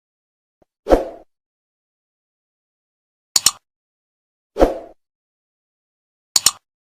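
Edited intro sound effects: four short hits in dead silence, alternating a low thump with a sharp double click, spaced about a second and a half apart.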